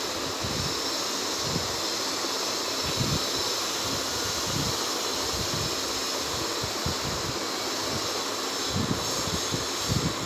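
Steady rushing noise with irregular low buffeting thumps, the sound of moving air striking a microphone.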